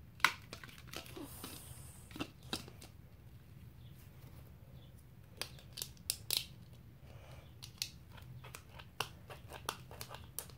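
Packaging being worked at by hand: scattered sharp clicks and light crinkling of plastic and cardboard while trying to free a bike seat held in by a zip tie.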